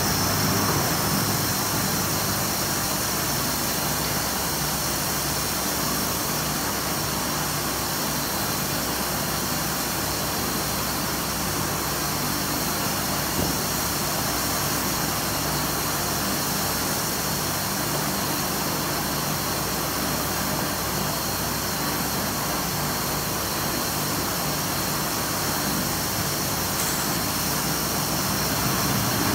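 Foam-cutting machine and surrounding factory machinery running with a steady drone and hiss that holds unchanged throughout.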